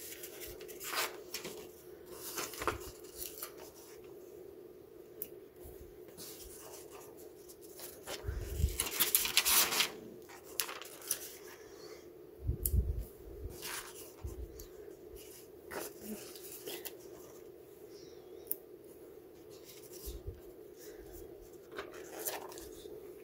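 Paper sticker sheets rustling as planner stickers are peeled off their backing and pressed onto the pages, with scattered light taps and a louder stretch of crinkling about nine seconds in. A low steady hum runs underneath.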